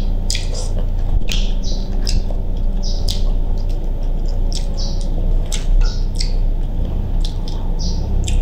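Boiled seafood shells cracked and peeled apart by hand: irregular short crisp clicks and squeaky, wet crackles over a steady low hum.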